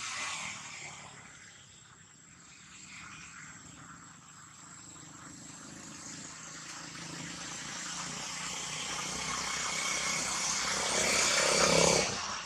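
A motor engine droning, growing steadily louder over several seconds and cutting off abruptly near the end.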